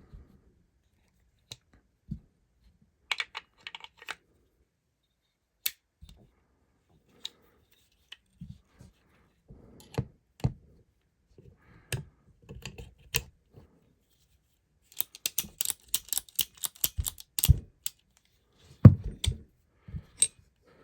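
Sharp clicks and light metallic clinks of a Heritage .22 LR revolver's parts being handled and worked during disassembly. A quick run of clicks comes about fifteen seconds in, and a few heavier knocks follow near the end.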